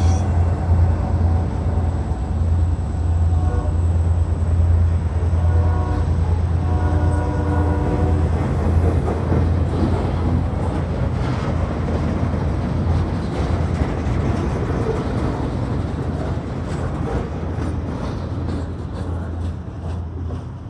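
A diesel-hauled freight train of a covered hopper and boxcars rolling past slowly, with a steady low engine hum as the locomotives pull it uphill and the wheels rumbling on the rails. The locomotive horn sounds a short blast about six seconds in and a longer one just after. The rumble fades near the end as the last cars pass.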